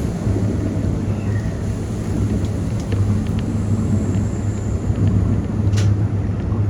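Keikyu Main Line electric train running, heard from inside the carriage as a steady low rumble. A few faint ticks and one sharp click come about six seconds in.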